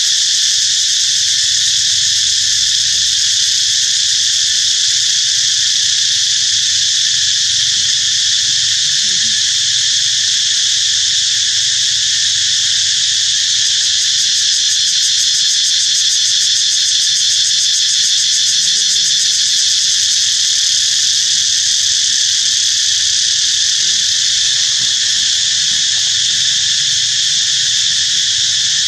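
A loud, steady chorus of insects: dense high buzzing with no breaks.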